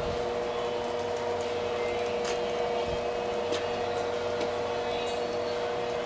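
1933 Maytag electric wringer washer running with its wringer engaged: a steady hum from the electric motor and gearbox, with a few faint light clicks.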